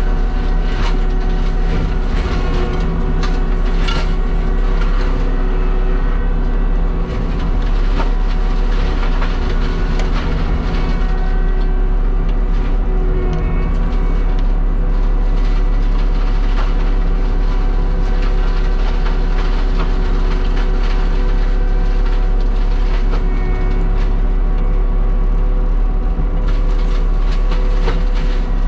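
Heavy diesel land-clearing machine running steadily under load, with scattered sharp cracks and knocks over the engine.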